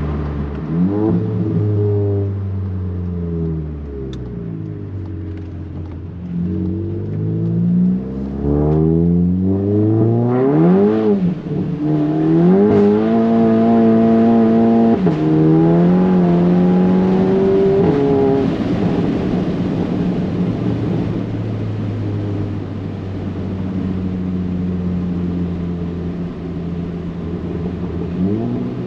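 Tuned VW MK7 GTI's turbocharged 2.0-litre four-cylinder, through a 3-inch turbo-back exhaust with a catless downpipe, heard from inside the cabin as the car accelerates. The revs climb and drop sharply several times as it pulls through the gears, then the engine holds a steady note while cruising and climbs again near the end.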